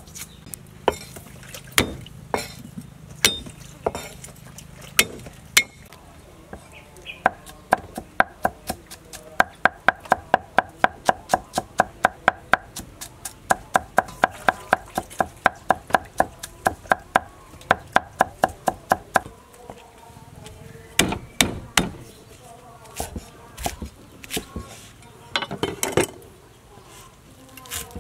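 Cleaver chopping on a round wooden chopping block: scattered chops at first, then a fast, even run of about four strikes a second through the middle while mincing garlic, then a few separate heavier chops near the end.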